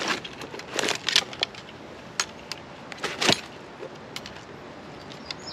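Handling noise from a landing net and a hand-held digital fish scale: a run of sharp clicks, rattles and rustles, busiest in the first three and a half seconds and loudest just after three seconds in.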